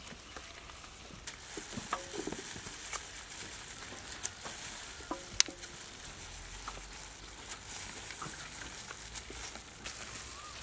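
Dry nuts (almonds, cashews and pistachios) being handled and dropped onto a metal tray, making scattered light clicks and rattles.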